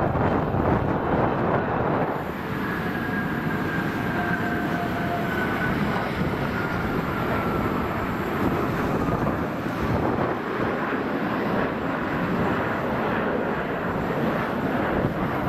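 Boeing E-6B Mercury's four CFM56 turbofan engines at high power on departure: steady jet engine noise with a faint whine that falls slowly in pitch a few seconds in.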